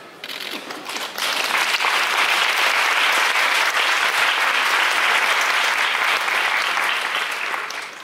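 Audience applauding, swelling about a second in and fading away near the end.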